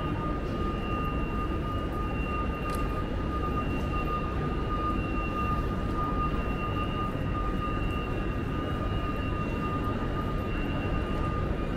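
Railway station concourse ambience: a steady low rumble with two constant high-pitched whines running over it.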